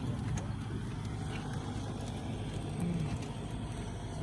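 Car engine running steadily at a low, even hum, with no revving.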